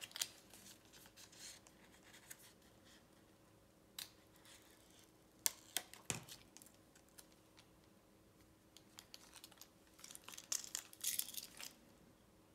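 Faint crinkling and scratching of a clear adhesive protective film being handled and its backing peeled off, with a few scattered light ticks. The crinkling is densest for a couple of seconds near the end.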